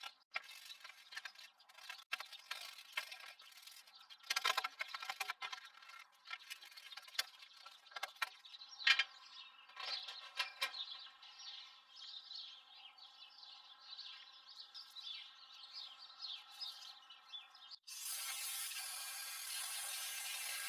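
Birds chirping outdoors with scattered light clicks and knocks. About 18 seconds in, a loud steady hiss starts abruptly.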